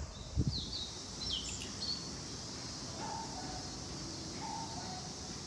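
Small birds chirping: a few quick, falling calls in the first two seconds, over a faint steady outdoor hiss. A low thump comes about half a second in.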